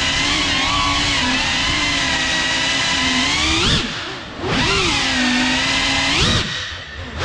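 GEPRC CineLog 35 cinewhoop's brushless motors and ducted propellers whining steadily in flight. Twice, near the middle and near the end, the whine swoops up, falls away quieter and climbs back as the throttle is cut and punched again.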